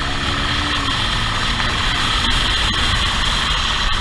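Motorcycle engine running at speed, under a steady rush of wind and road noise.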